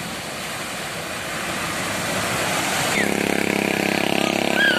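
Floodwater rushing and splashing as a loaded truck wades through it. About three seconds in, this gives way to a small motorcycle engine running steadily and louder as the bike rides through the flood.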